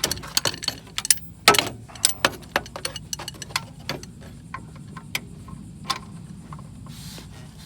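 Irregular metal clicks and clinks of hand tools being handled, a breaker bar and socket knocking against metal, quick and dense at first, then thinning to occasional taps.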